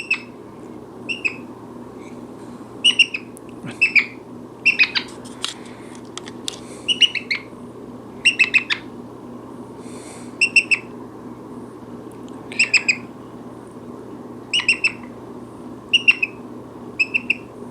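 Brown-headed parrot giving short, high-pitched call notes, often in quick pairs or triplets, repeating every second or two.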